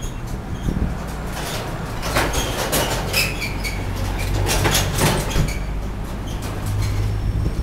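Town-centre street traffic: cars going round a roundabout over a steady low engine hum, with a run of sharp clicks and short squeaks from about one and a half to five seconds in.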